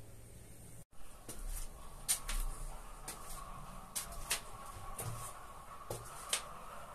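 Footsteps climbing a brick spiral staircase, a string of irregular scuffs and taps at about one or two a second, over a faint steady high hum.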